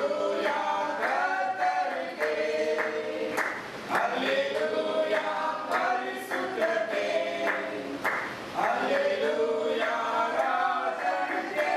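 A congregation singing a worship song together, with hand claps along.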